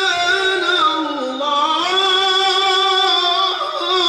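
A man reciting the Quran in melodic tilawah style into a microphone, holding long ornamented notes. The voice slides lower about a second in and climbs back up a second later.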